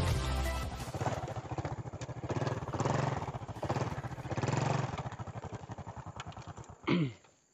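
Honda scooter's small engine running as it is ridden along a rough dirt track, its speed rising and easing in waves. About seven seconds in the engine's pitch falls sharply as it winds down and stops.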